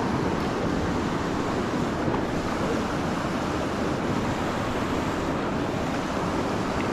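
Steady rush of a creek's flowing water over rocks, an even, unbroken hiss.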